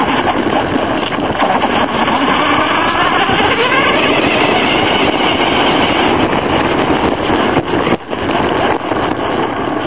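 Traxxas Stampede VXL brushless RC truck driving fast, heard from a camera mounted on the truck: a loud, dense rush of tyre and drivetrain noise over dirt and asphalt, with a faint rising motor whine a few seconds in. It dips briefly about eight seconds in.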